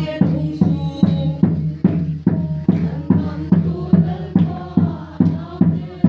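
Group singing with a drum keeping a steady beat, about two strokes a second.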